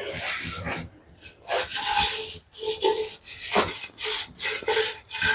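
A brush scrubbing oil off an engine in a series of rasping strokes, a little more than one a second.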